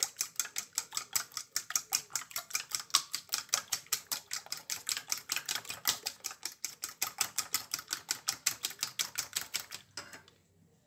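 A fork beating raw eggs in a ceramic bowl, clicking against the bowl in a fast, even rhythm of about seven strokes a second. The beating stops about ten seconds in.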